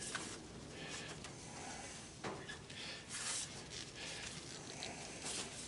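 Quiet handling noises at a workbench: a few light knocks, scrapes and rustles as copper tubing and tools are moved about, with no power tool running.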